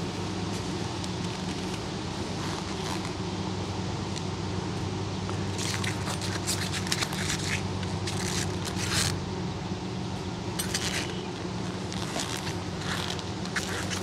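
Metal hive tool prying and levering a wooden frame loose in a beehive box: bursts of scraping and cracking as the frame breaks free of the propolis that glues it, loudest about halfway through and again near the end, over a low steady hum of bees.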